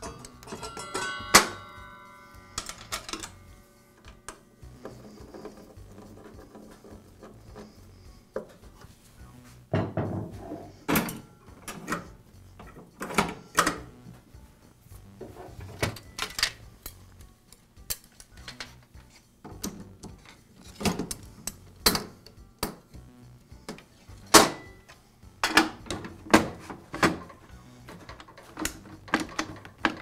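Metal and plastic table-saw parts being handled and set in place by hand, making scattered clicks, knocks and clatter. About a second in there is a short metallic ringing.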